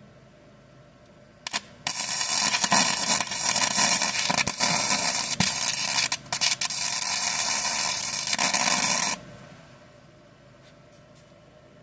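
Gasless flux-core welder arc crackling in one continuous run of about seven seconds, after a brief strike just before it, then cutting off. The steel being welded has wax behind it, which the welder is trying to burn through.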